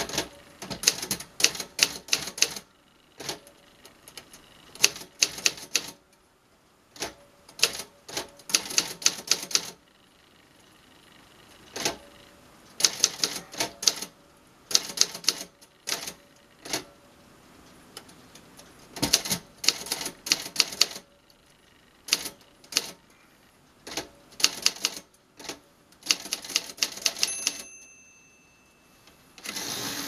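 1949 Remington portable manual typewriter being typed on in quick bursts of key strikes with short pauses between. Near the end a short ringing tone sounds, the end-of-line bell, and then the carriage is returned.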